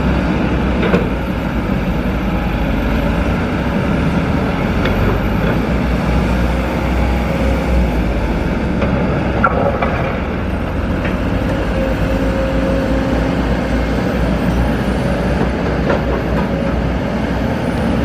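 Diesel engines running steadily: a Kobelco SK200 excavator dumping a bucket of soil into a light dump truck, then the loaded dump truck driving off. A few short clunks stand out now and then.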